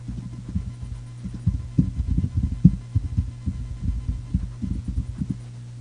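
Computer keyboard being typed on in quick, uneven succession, the keystrokes heard as dull low thuds over a steady low hum; the typing stops about five seconds in.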